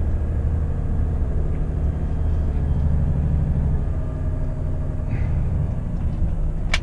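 Diesel lorry engine idling with a steady low hum, and a sharp click near the end.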